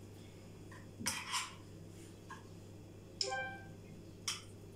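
A metal spoon scraping and clinking against a frying pan while scooping out chicken filling: short scrapes about a second in, a ringing metallic clink about three seconds in, and a sharp click near the end.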